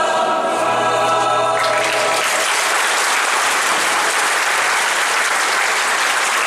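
A mixed choir holds its final chord, which ends about two seconds in. Audience applause breaks out as the chord ends and continues steadily.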